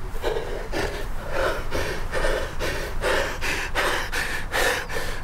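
A man sobbing in quick, gasping breaths, about three a second.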